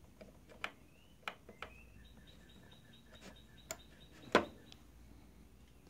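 RJ45 plastic connector of an interface cable being handled and pushed into the Argent ADS-SR1 repeater's jack, giving a few small clicks and one sharper click about four and a half seconds in as it seats.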